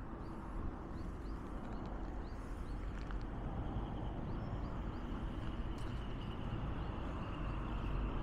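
Straw burning in a smokeless carbonizer just after ignition: a steady rushing noise with a few faint crackles, slowly growing louder as the fire takes hold.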